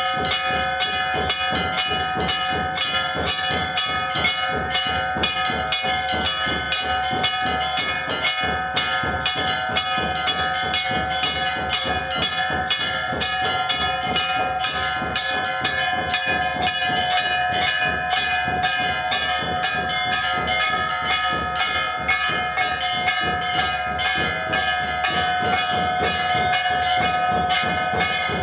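Temple bells ringing continuously, struck rapidly and evenly several times a second over a steady ringing tone.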